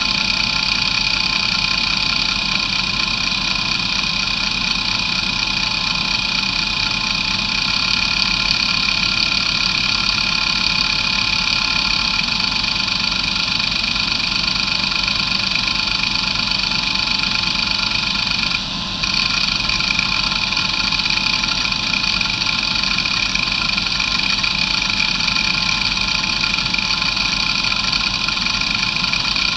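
Areal Technology MD2085 2.5-inch hard drive with glass platters, running steadily with a high whine over a hiss while its heads are driven through a seek test. The drive is in good health. The sound dips briefly about two-thirds of the way in.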